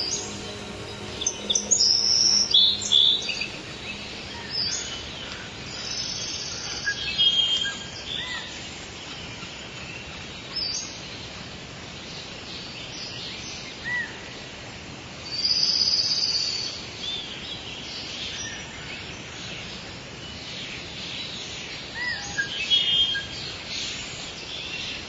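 Several songbirds chirping and calling in short bright notes over a steady background hiss. The chirping is busiest near the start and again in two spells later on.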